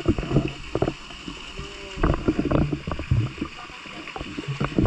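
Water sloshing and splashing close by in irregular strokes over a steady hiss.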